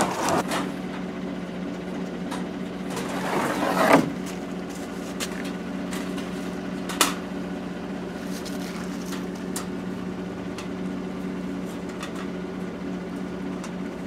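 Pickup truck engine idling with a steady hum, under scattered clicks and rattles of a wire live-animal trap being lifted, set down and its door worked. A rustling swell comes about three to four seconds in and a sharp clank about seven seconds in.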